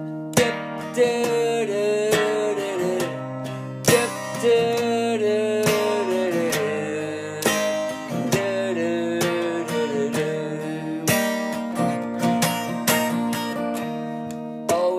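Instrumental passage of an acoustic song: strummed acoustic guitar with a sustained melody line that steps and glides over held low notes.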